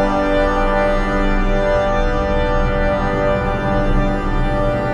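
Background music of long, held chords.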